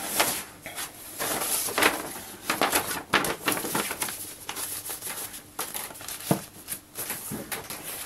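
Large paper sheet rustling and crinkling in irregular handling noises as a hand-drawn map is folded and laid into a cardboard box, with one soft knock about three-quarters of the way through.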